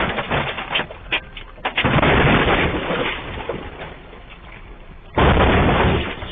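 A massive rock falling and crashing onto a truck: loud crashing and rumbling, the heaviest starting about two seconds in, then a second sudden loud crash about five seconds in.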